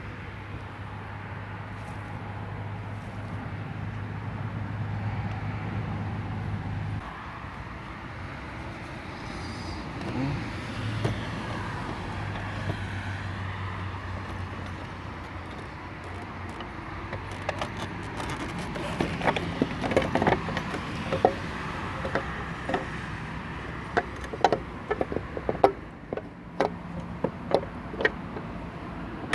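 Metal parts and hand tools clinking and knocking as a scooter's transmission is being worked on, with a string of sharp knocks and clicks in the second half over a steady low hum.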